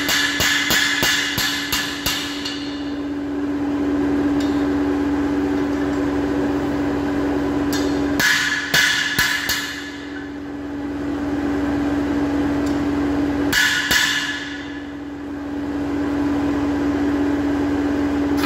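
Hand hammer blows on a hot forged rod on an anvil, straightening it: a quick run of ringing strikes for about the first two seconds, another cluster about eight seconds in and a few more near fourteen seconds, over a steady hum.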